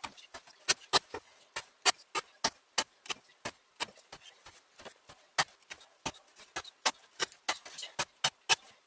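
A carpenter's axe chopping through hemp rope onto a soft cedar board, cut after cut: a quick series of sharp knocks, about three or four a second.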